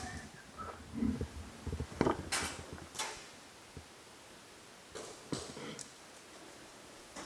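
A few short rustling swishes, each about a third of a second long, with light clicks and knocks between them and quiet gaps, typical of a player's clothing and gear brushing and shifting as he moves.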